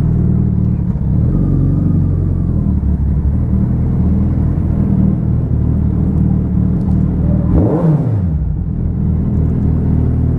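Suzuki Hayabusa's inline-four engine running steadily, heard from the bike. About eight seconds in, another vehicle passes close by with a quick drop in pitch.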